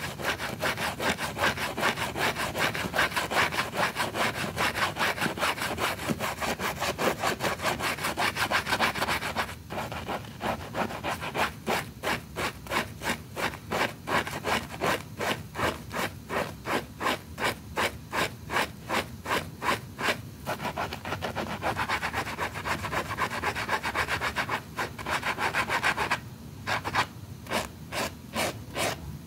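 Wet rug being scrubbed by hand in rhythmic back-and-forth strokes, about two a second. The strokes are dense and loudest for the first third, then come more spaced.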